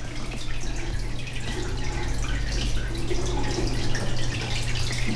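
Water dripping and trickling in an aquaterrarium, irregular splashy drops over a steady low hum.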